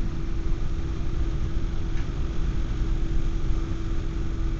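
Steady running noise inside a Class 170 Turbostar diesel multiple unit at speed: an even low rumble from the train and track, with a steady hum under it.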